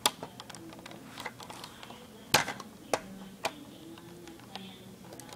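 Hand screwdriver driving screws into a plastic RC toy car, with irregular light ticks and clicks. A few sharper knocks come through, the loudest a little over two seconds in.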